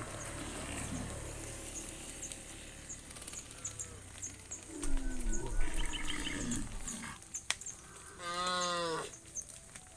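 Cows mooing: several low, drawn-out moos that fall in pitch, then a shorter, louder, brighter call near the end.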